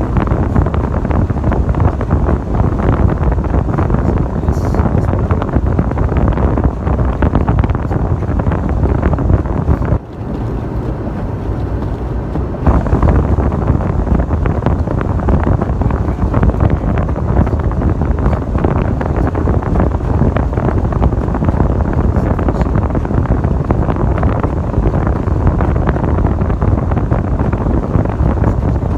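Loud, steady rumbling of wind buffeting the microphone, mixed with a vehicle's running and road noise. It drops off briefly about ten seconds in and comes back a couple of seconds later.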